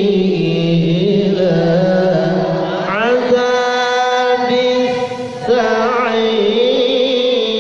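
A man's solo melodic Quran recitation (tilawah) in the Nahawand Kurdi maqam, holding long sung notes with ornamented turns. About three seconds in, the voice slides quickly upward to a higher held note.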